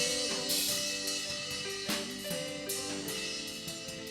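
Live worship band playing between sung lines of a praise song: drum kit with several cymbal crashes over held instrument chords that change every half second or so.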